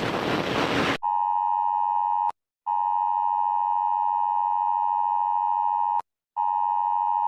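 A burst of loud, hissing noise cuts off about a second in. It gives way to a steady electronic emergency-alert attention tone near 1 kHz, broken twice by short silences of about a third of a second.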